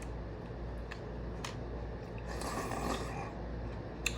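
A person eating: faint chewing and mouth sounds, with a short louder stretch near the middle and a couple of light clicks, over a steady low hum.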